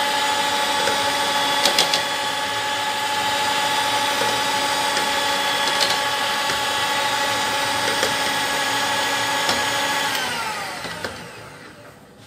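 Electric hand mixer with twin wire beaters running at a steady speed in a bowl of a white mixture, with a few short clicks. About ten seconds in, it is switched off and its whine falls in pitch as the motor spins down.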